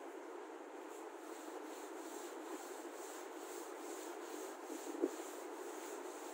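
Chalkboard duster rubbing back and forth across a chalkboard, wiping off chalk in a steady run of repeated strokes.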